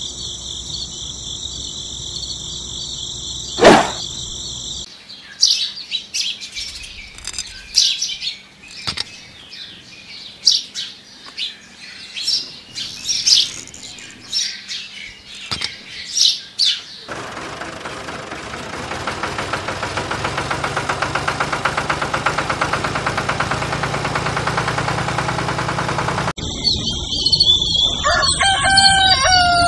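Birds chirping in many short calls, after a steady high-pitched tone broken by two sharp clicks. For several seconds in the second half a steady buzzing whir takes over, and a few gliding bird calls follow near the end.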